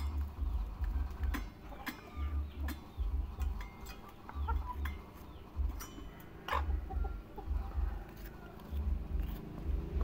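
Chickens pecking rice out of aluminium pots and bowls: scattered sharp clicks of beaks on metal, with a few soft clucks. Bursts of low rumble on the microphone come and go.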